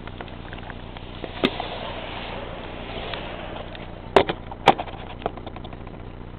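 Handling knocks from a handheld camera as it is tilted and lowered: one knock about a second and a half in, then two louder knocks a little after four seconds, over a steady noisy background.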